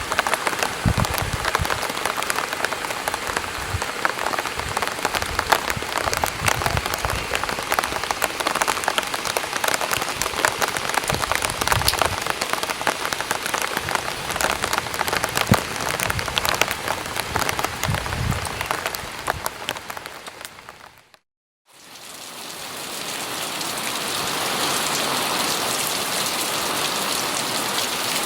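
Light rain falling on an umbrella, a dense patter of individual drop hits. About 21 seconds in it fades briefly to silence, then fades back in as a smoother, steadier rain hiss with fewer distinct drops.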